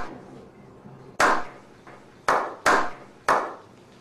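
Slow handclapping: single sharp claps about a second apart at first, gathering pace toward the end.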